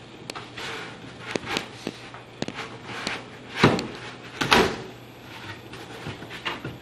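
Wooden cabinet back panel being worked into the grooves of the cabinet bottom: a run of light knocks and clicks, with two louder knocks a little past halfway.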